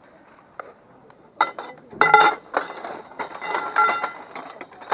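Scrap metal pieces clanking together as they are handled: a run of sharp knocks with a metallic ring, the loudest about two seconds in and another cluster about a second and a half later.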